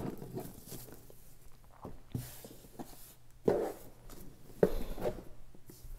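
Hands untying a ribbon and handling a cardboard gift box: scattered rustles and a few soft knocks of the box, the loudest about three and a half seconds in.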